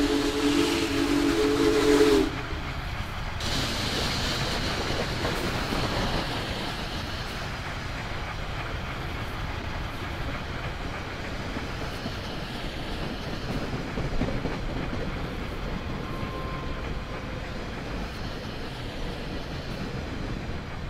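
Whistle of the Union Pacific Big Boy 4014 steam locomotive sounding a steady chord of several notes that cuts off about two seconds in. It is followed by the steady running noise of the train on the rails.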